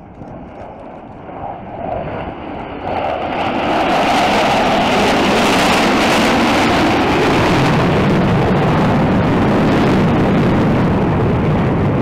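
Four Blue Angels F/A-18 Super Hornet jets flying past in tight formation. The jet noise grows over the first few seconds, then holds loud and steady.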